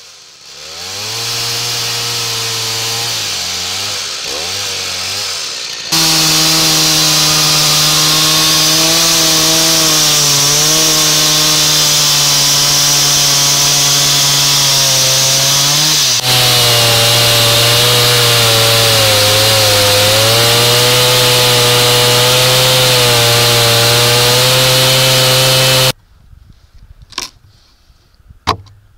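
Stihl two-stroke chainsaw running at high speed under load, cutting into Douglas fir to hollow out the head of a dugout canoe. It jumps louder about six seconds in and stops abruptly near the end. After it, a few sharp knocks come from a hand gouge working the wood.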